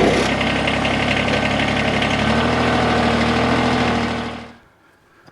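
Engine idling steadily, its note shifting about two seconds in, then fading out near the end.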